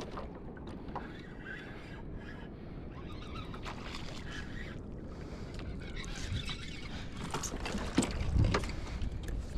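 Wind and water noise aboard a small boat at sea, a steady low rumble with scattered clicks and knocks. A few louder knocks come about eight seconds in.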